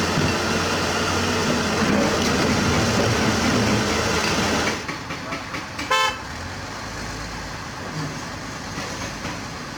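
Doosan 500LCV excavator's diesel engine running hard, dropping to a quieter, steadier run just under five seconds in. About a second later comes a single short horn toot.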